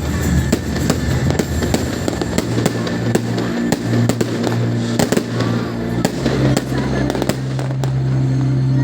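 Many New Year's fireworks going off at once, a dense run of bangs and crackles, over music with long held low notes.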